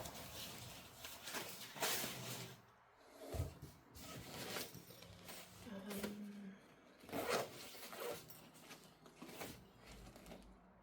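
Packaging being handled: a series of short rustling, crinkling strokes, several seconds apart.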